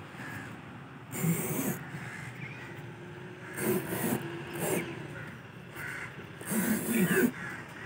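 Hand-held blade cutting through an old truck tyre, the rubber scraping and squeaking in three short, uneven strokes.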